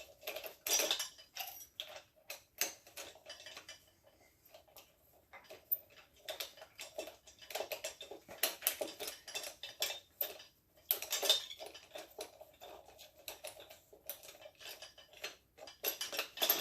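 Metal tools clinking and rattling as a loosened engine set screw is turned out with a socket and wrench: irregular clusters of sharp metallic clicks.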